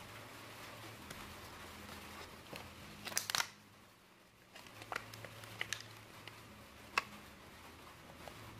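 Hands handling a plastic blister pack and a small accessory: a short burst of plastic crinkling about three seconds in, the loudest sound, then a few sharp clicks and taps, over a low steady hum.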